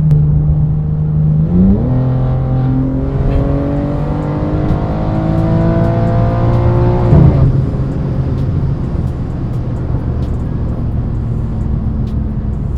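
BMW M3 G80's twin-turbo straight-six with a titanium exhaust, accelerating hard. The engine note climbs steadily for about five seconds, drops suddenly about seven seconds in as the throttle is lifted, then runs steadily at lower revs.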